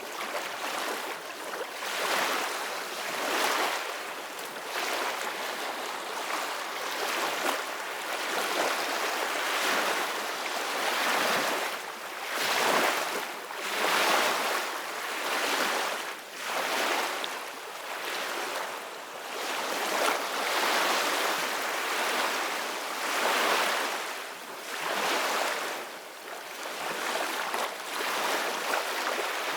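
Sea waves rushing and breaking: a continuous hiss of surf that swells and falls back every few seconds, with no low rumble.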